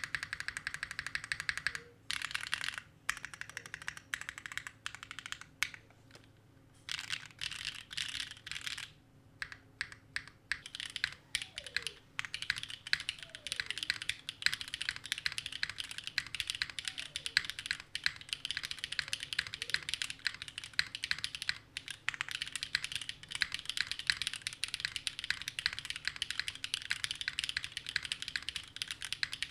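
Mechanical keyboard with Gateron Sage linear switches being typed on: a fast, continuous patter of keystrokes with a few brief pauses.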